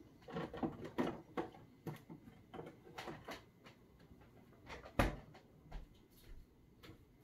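A run of light, irregular clicks and knocks, with one louder thump about five seconds in.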